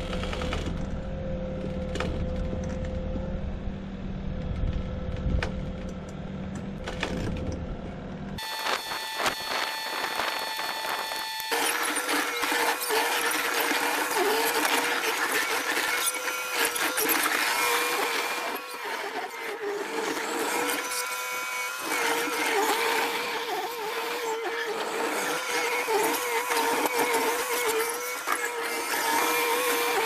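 Case TV450 skid steer working, its engine and hydraulics running with a wavering whine. The sound changes abruptly twice in the first dozen seconds, as between separate takes.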